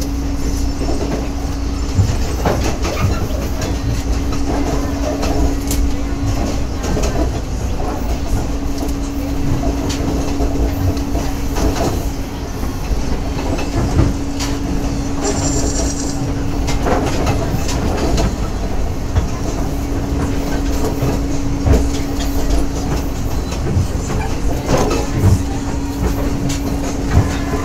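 Moving Philippine National Railways train heard from inside the passenger car: steady running rumble with the clickety-clack of wheels over the rail joints, and a steady hum that drops out now and then. A brief high tone sounds about halfway through.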